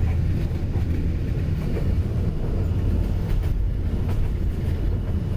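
Steady low rumble of a moving train, with faint scattered clicks over it.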